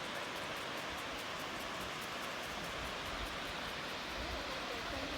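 Steady rush of a waterfall, an even hiss of falling water, with a low rumble joining in from about halfway through.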